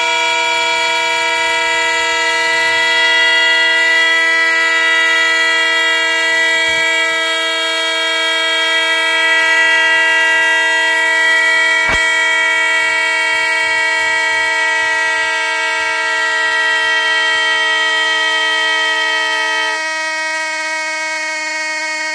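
Several plastic toy trumpet horns taped into the neck of a big inflated balloon, blown by the air escaping from it, sounding together as a steady chord of horn tones. About two seconds before the end one horn stops and the others sound on; a single click about halfway through.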